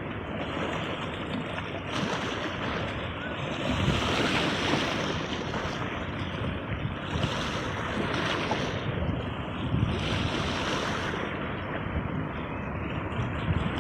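Sea waves breaking and washing in, a steady surf noise that swells and eases every few seconds.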